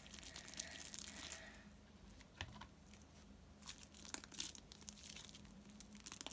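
Faint sticky crackling and scattered small clicks of hands squeezing and pulling homemade glue slime. The slime has too much laundry detergent in it and is not binding.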